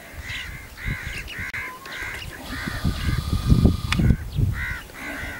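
Crows cawing over and over, about two short calls a second. Low rumbling noise, loudest in the middle, and a sharp click about four seconds in.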